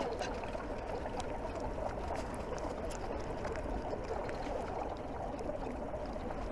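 Steady restaurant room noise, with a few faint light clicks of chopsticks against a china plate as the last of the rice is scooped up.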